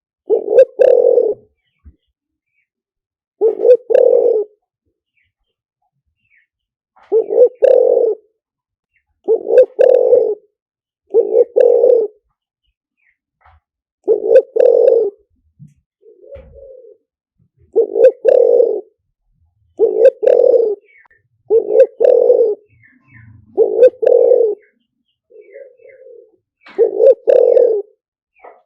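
Spotted dove cooing: a series of short, low coo phrases about every two seconds, with a few softer coos between them. It is the decoy call used to lure wild spotted doves to a trap.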